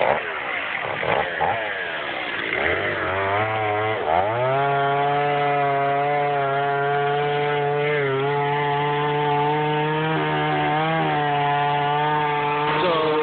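Chainsaw engine revving unevenly, then rising about four seconds in to a steady full-throttle run, with a couple of brief sags in pitch, while cutting into a large dead tree.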